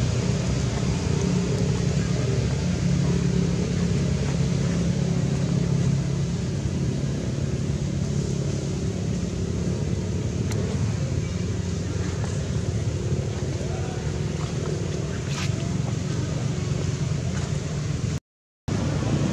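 Steady low rumble of an engine running, with a few held hum tones; it cuts out completely for a moment near the end.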